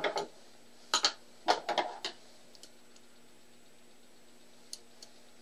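Small metal parts clinking and knocking as they are handled: screws, a hex key and a metal machine part striking one another, a cluster of clinks in the first two seconds, then two faint ticks near the end.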